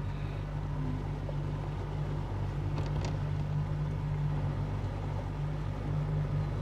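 A vehicle running steadily, a low engine and road hum, with two faint ticks about three seconds in.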